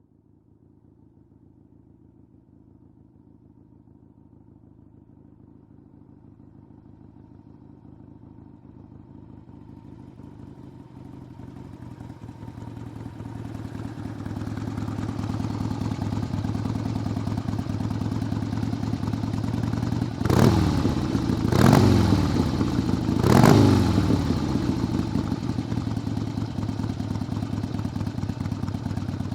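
Harley-Davidson V-twin motorcycle approaching and growing steadily louder for about fifteen seconds, then settling into a steady idle. A little past two-thirds of the way through it gives three quick throttle blips, each falling back in pitch, then idles on.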